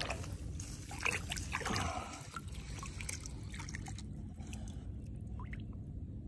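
Hand rinsing a small stone flake in shallow water: splashing and trickling over the first two seconds or so, then quieter.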